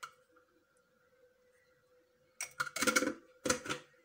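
A faint steady hum, then from about two and a half seconds in a handful of quick clicky taps and rattles as ground cumin is shaken from its container into a bowl of chopped herbs.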